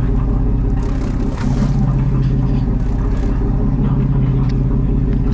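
Boat engine running with a steady low hum, with a few faint knocks over it.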